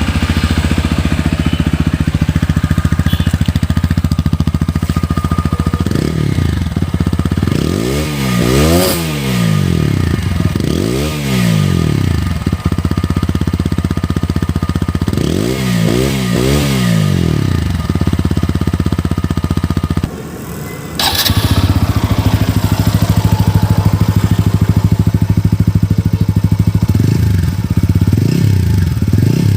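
TVS Apache RTR 4V single-cylinder motorcycle exhausts idling steadily and being revved in short blips, the pitch sweeping up and falling back, with a few revs in the first half. About twenty seconds in the sound drops away briefly and a sharp click is heard, then a steady idle resumes with small throttle blips near the end.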